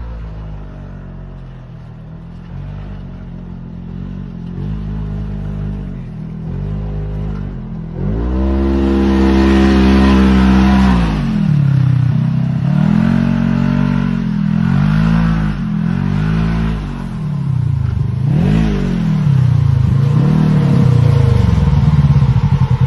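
Polaris RZR 1000 side-by-side's engine approaching and growing steadily louder over the first several seconds, then close up, revving up and down repeatedly in short bursts as it is driven about.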